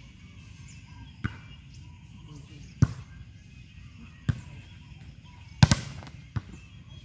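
A volleyball being hit repeatedly: five sharp smacks about a second and a half apart. The fourth is the loudest and sounds doubled.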